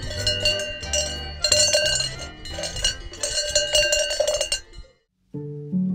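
Background music with bright, clanking bell-like strikes over a stepping bass line, cutting off about five seconds in. After a short silent gap a different piece with plucked strings begins.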